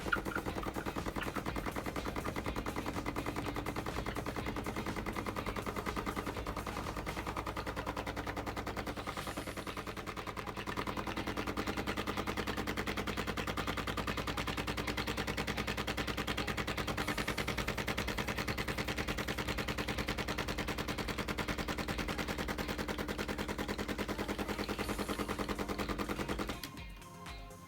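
DeLonghi Dedica espresso machine's vibratory pump buzzing steadily as it pushes hot water out into the cup. It dips a little in level partway through and stops suddenly near the end.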